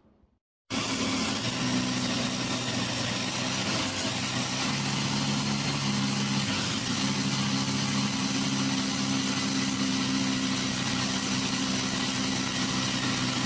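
A motor running steadily with a low hum, cutting in abruptly about a second in.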